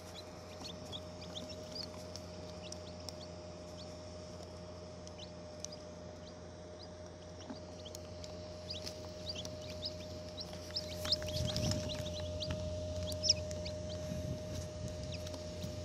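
Newly hatched chicken chicks peeping in short, high chirps, more often in the second half. Under them is the steady hum of the incubator's small fan, with a few low bumps of the chicks moving about, about eleven seconds in.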